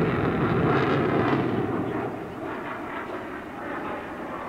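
Aircraft engine in flight. It is loud at first and fades about two seconds in as the plane moves away.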